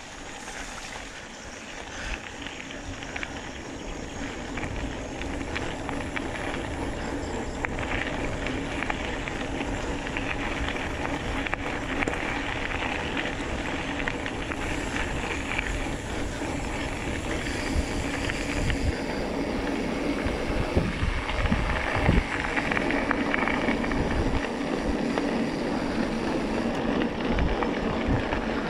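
Mountain bike rolling fast over a dirt and gravel road: a steady rush of tyre noise, bike rattle and wind on the microphone. It grows louder as the bike picks up speed, with a couple of low thumps from bumps about two thirds of the way in.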